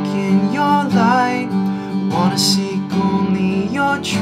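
Takamine acoustic guitar strummed as a steady accompaniment, with a man's singing voice over it in a few drawn-out phrases.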